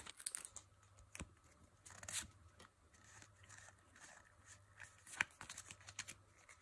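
Faint rustling and light clicks of trading cards being slid out of a torn foil booster wrapper and handled as a stack. There is a slightly louder rustle about two seconds in.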